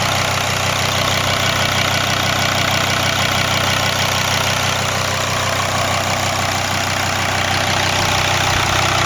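Mercedes OM612 2.7-litre five-cylinder turbo diesel engine idling steadily, with no revving.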